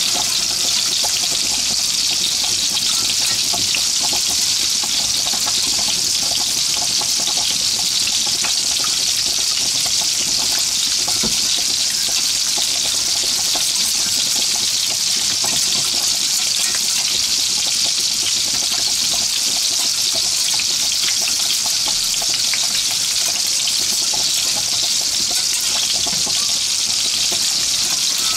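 Meatballs frying in hot oil in a pan: a steady sizzle with many small crackles of spattering fat.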